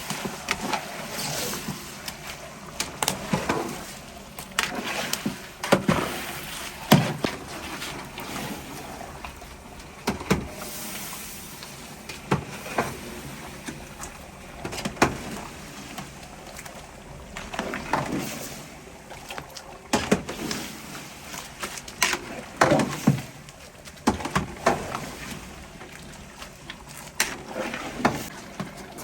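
Cooking work: irregular knocks and clatter, like utensils and cookware being handled, coming in clusters with short pauses, over a steady background hiss.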